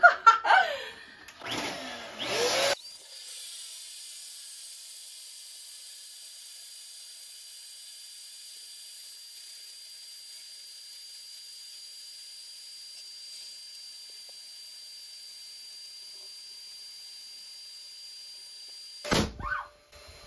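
Electric balloon pump running steadily, with a constant high whine over its hiss, as it inflates a large clear latex balloon. Near the end a sharp loud bang, the balloon bursting, and the pump stops.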